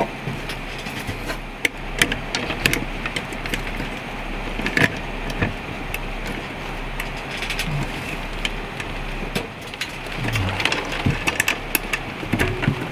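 Scattered light metallic clicks and knocks as the beeswax automatic vent opener's cylinder and arm are fitted onto the vent bracket by hand, over a steady hiss of light rain.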